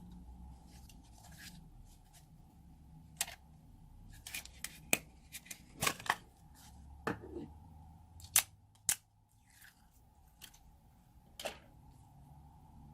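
Slime being squeezed and stretched by hand, giving irregular sharp sticky clicks and pops.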